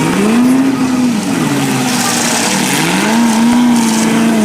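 Demolition derby car engines revving, the pitch swooping up then easing off twice before holding steady.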